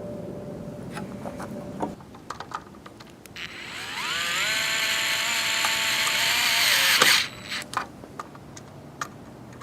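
Miter saw's electric motor switched on briefly, whining up to speed over about a second, running steadily for about three seconds, then stopping abruptly. It is a test run of the blade after shimming its worn spindle bearing. Light clicks and handling knocks come before and after.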